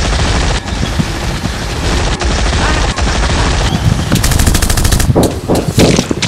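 Dubbed-in gunfire sound effects: continuous rapid shooting, with a fast, even rattle of shots about four seconds in and a few heavier single shots after it.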